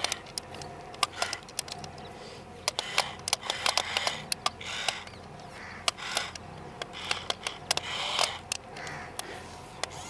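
Small electric gear motors of a toy remote-control crawler excavator whirring in short bursts as its boom and bucket move, with many sharp plastic clicks throughout.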